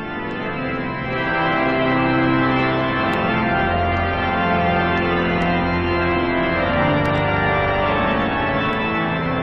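Organ music playing slow sustained chords that swell in at the start, with a deep bass note coming in about three and a half seconds in.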